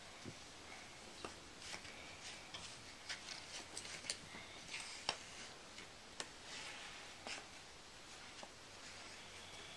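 Light, scattered clicks and taps of puzzle pieces being handled and fitted into a board jigsaw puzzle.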